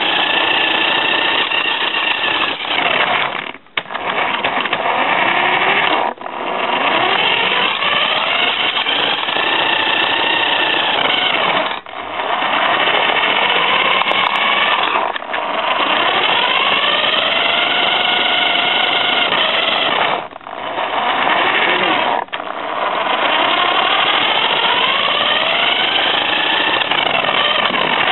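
Cheap toy RC car's small electric motor and gearbox whining loudly, heard right up close from a camera riding on the car. The pitch sweeps up as it speeds up and falls back, and the sound drops out briefly about six times as the car stops and sets off again.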